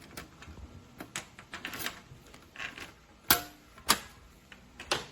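Small metal pistol safe being handled: an irregular series of clicks and knocks, with two sharp clacks about three and a half and four seconds in.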